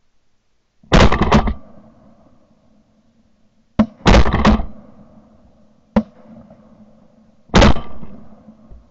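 Three shotgun shots fired at Canada geese in flight, about three seconds apart, each dying away over about a second. Two brief sharp clicks fall between the shots.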